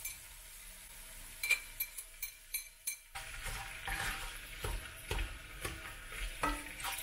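Diced onion sizzling as it starts to fry in hot oil in a non-stick frying pan on a gas hob. There are a few sharp clicks of utensils against the pan, then from about three seconds in the sizzling grows louder with the scrape of a spatula stirring the onion around.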